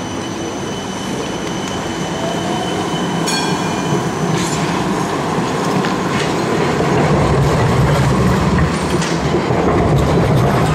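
A Melbourne D1-class Siemens Combino tram rolls past close by on its rails, with a steady high whine early on and a brief high squeal a little over three seconds in. The rumble of the wheels on the track grows louder through the second half as the tram passes.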